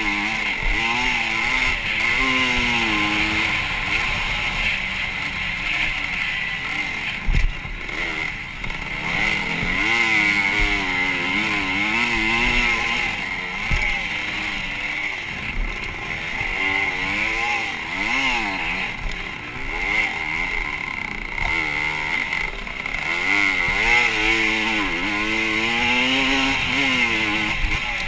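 Motocross dirt bike engine under hard riding, its pitch rising and falling again and again as the rider works the throttle and shifts, with a sharp knock about seven seconds in.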